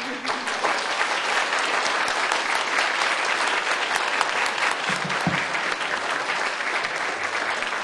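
Audience applauding steadily at the close of a speech, a dense patter of many hands clapping.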